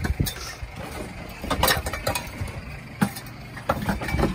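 A boat's engine running, with several sharp knocks about a second and a half apart.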